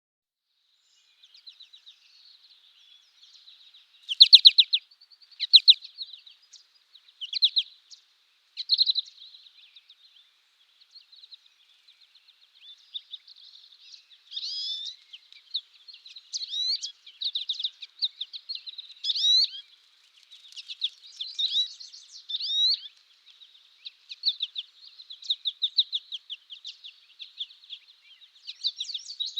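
Goldfinch chirping and twittering: a few short, fast trills in the first several seconds, then near-continuous high twittering with quick rising and falling notes.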